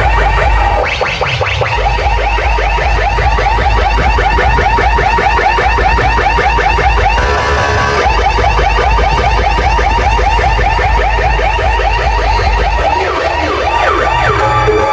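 DJ sound system at full volume playing a rapid, repeating siren-like warble over heavy bass, with a brief buzzy break about seven seconds in.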